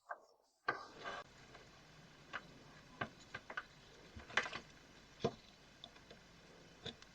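Scattered small clicks and taps of a soldering iron's plastic handle and parts being handled and pried at during disassembly, irregular and faint.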